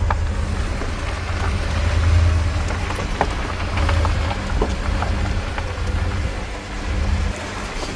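RV driving slowly: a steady low engine and road rumble, with a crackling hiss and scattered small clicks over it.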